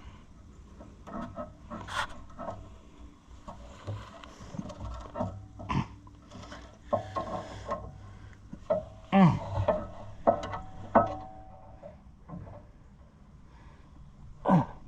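Clicks, knocks and scrapes of steel hydraulic line fittings being worked by hand onto the tractor as they refuse to thread, with a man's short straining grunts and groans in between.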